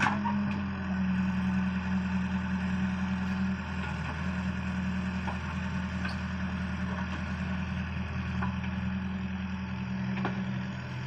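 Excavator's diesel engine running steadily, with a few light clicks from the machine.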